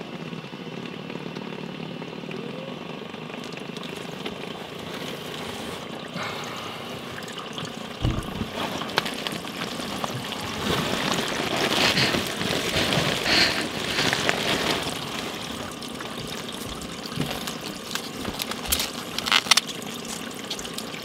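Shower water running and draining down the drain pipe overhead, a steady pouring rush heard from the crawl space under the shower floor, swelling in the middle, during a leak test of the shower pan. A thump about eight seconds in.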